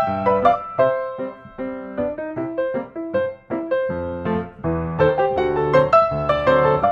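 Background piano music: a brisk melody of struck notes over a bass line.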